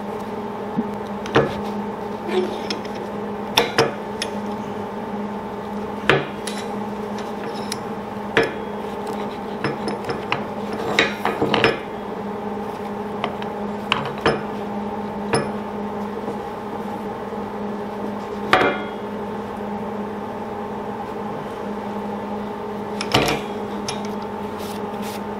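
Scattered sharp metal taps and clinks, a dozen or so at uneven intervals, as a hand tool strikes and handles steel parts clamped in a bench vise. A steady electrical hum runs underneath.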